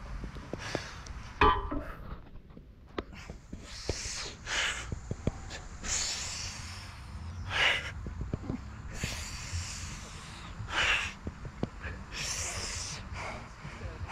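A man breathing hard, with hissing breaths every second or two, winded from sets of pull-ups. A single sharp knock about a second and a half in.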